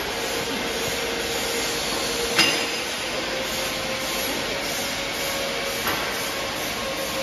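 Steady running noise of an automatic TIG welding machine for beer keg top rings, with a faint steady hum. A sharp metallic clink sounds about two and a half seconds in, and a lighter one near six seconds.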